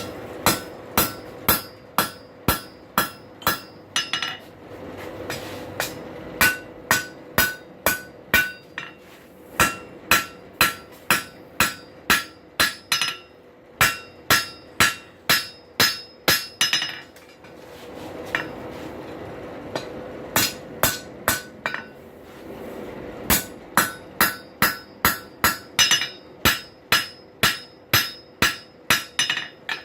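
Blacksmith's hammer striking hot steel on an anvil in fast runs of ringing blows, about two to three a second, with short pauses between runs: upsetting the heated end of the bar into a square 90-degree corner.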